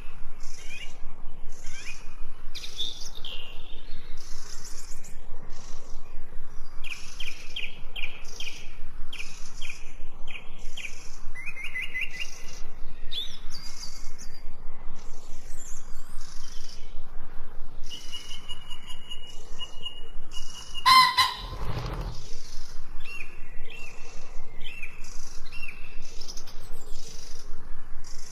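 Small birds chirping and trilling in quick, repeated phrases without a break, with a brief louder, harsher sound about three quarters of the way through.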